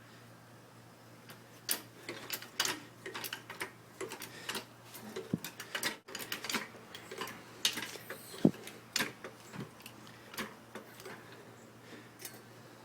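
Irregular run of light clicks and ticks, several a second, starting about a second in and dying away near the end: the rear axle clicking noise of an Infiniti G35.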